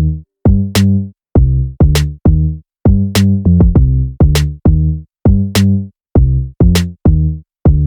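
Background electronic music with a drum-machine beat: a sharp clap or snare hit about every 1.2 seconds over short, punchy bass notes.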